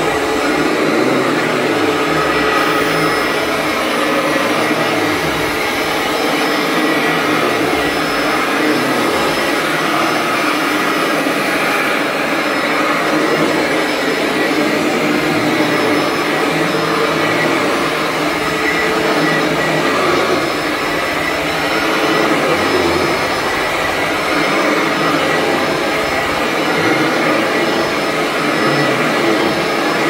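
Royal commercial heavy-duty upright vacuum cleaner running steadily while it is pushed over carpet.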